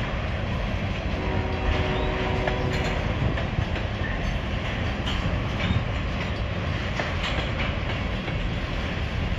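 Freight train of tank cars rolling steadily past: a continuous rumble of wheels on rail with scattered clicks as the wheels cross rail joints.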